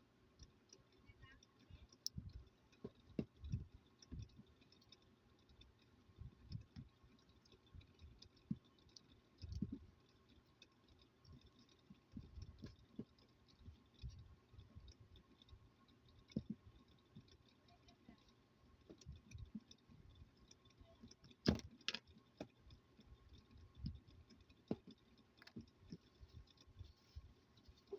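Faint, irregular clicks and taps of a plastic phone charger being handled and worked apart, with one sharper knock about two-thirds of the way through.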